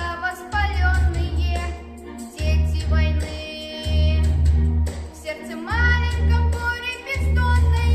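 A child singing a song over a backing track, with a deep bass note that pulses about every second and a half under the voice.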